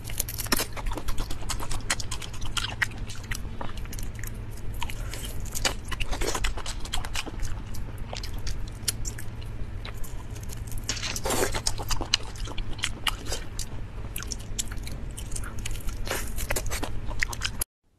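Close-miked eating of pan-fried prawns: irregular biting, chewing and crackling of the shells as they are pulled apart and bitten, over a steady low hum. The sound cuts off suddenly just before the end.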